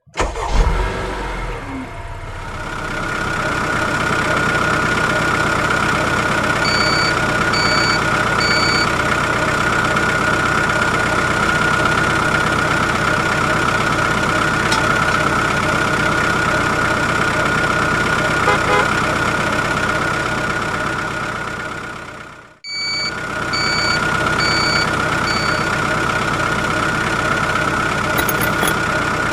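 Vehicle engine running steadily with a constant high whine, with reversing beeps sounding three times about 7 seconds in and four times about 23 seconds in, roughly one a second. The sound breaks off briefly just before the second set of beeps.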